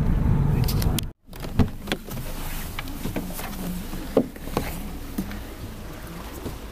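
Low steady road and engine rumble inside a moving car's cabin, cut off abruptly about a second in; then a few sharp knocks and clicks as a person climbs out of a parked car.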